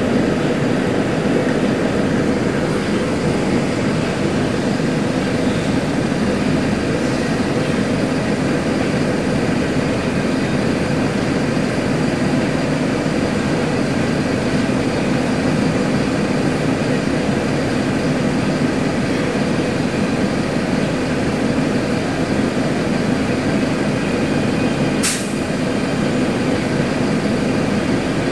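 Mercedes-Benz OF-1721L bus's front-mounted four-cylinder diesel running loud and steady, with one sharp click near the end.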